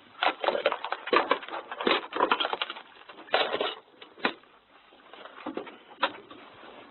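Irregular clattering and knocking, thickest in the first three seconds, then a short burst and two single sharp knocks later on.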